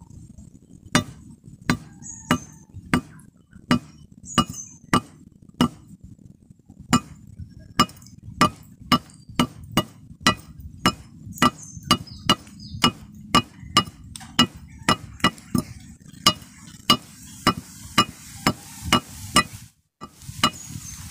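Repeated hammer blows on steel, each with a short metallic ring, driving a wooden handle onto a blade's tang. About one to two blows a second at first, then quicker, two or three a second.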